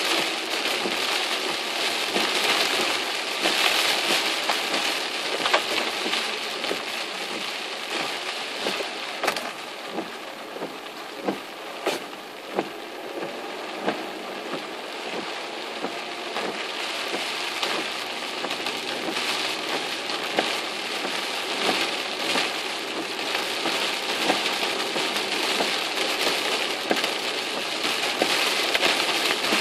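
Heavy typhoon rain hitting a car's roof and windshield, heard from inside the cabin as a dense hiss. About a third of the way in the rain eases for several seconds and a few separate sharp ticks stand out, then it grows heavy again.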